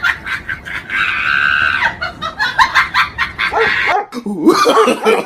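Dogs yelping and snarling in a scuffle, with a long high squeal from about one to two seconds in.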